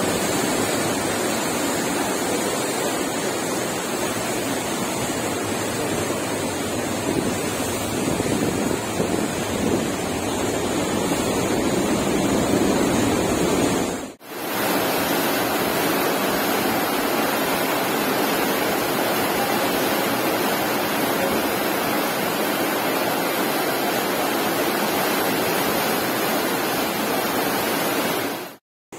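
Steady wash of a cruise ship's wake churning behind the stern, with wind on the microphone. The sound breaks off briefly about halfway through and again just before the end.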